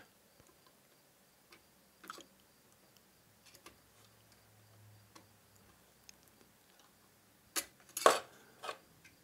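Small screwdriver working the screws of a model locomotive's sheet-metal bunker: scattered light metallic clicks and taps, with a few louder clacks near the end as the black inner panel is lifted out.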